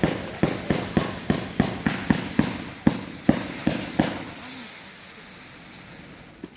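A rapid string of firework bangs, about three a second, then dying away into a fading hiss over the last couple of seconds.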